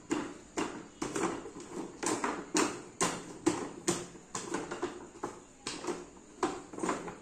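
A small child's footsteps slapping on a hard tiled floor, about two steps a second, steady and even.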